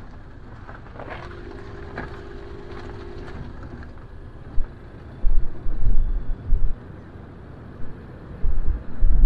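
Outdoor ambience with vehicle traffic, and gusts of wind rumbling on the microphone from about halfway through, loudest near the end.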